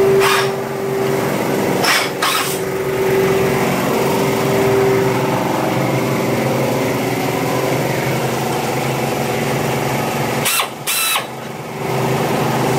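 Pneumatic air drill on shop air drilling through a steel bumper reinforcement bar. It runs steadily, and its whine comes and goes. Short sharp noises come about two seconds in and again about eleven seconds in.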